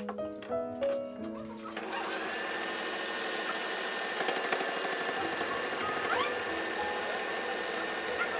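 Domestic electric sewing machine stitching fabric, running at a steady speed from about two seconds in.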